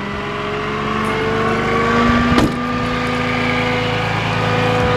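Flatbed tow truck's engine running with the PTO engaged to drive the bed's hydraulics; its pitch rises steadily over the first couple of seconds, then holds level. A single sharp thud about halfway through.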